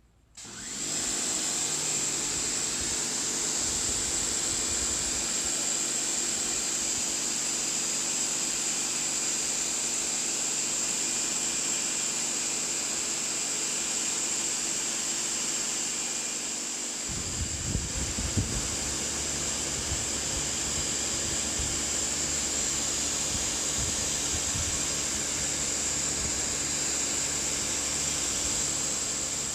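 Sun Joe SPX4001 electric pressure washer starting up about half a second in, then running steadily: its 14.5-amp motor and pump drone under the hiss of the high-pressure water spray. Past the middle the sound takes on a deeper rumble, with a few short knocks.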